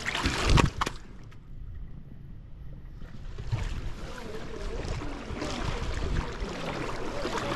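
River water and wind noise, with one sharp knock about half a second in.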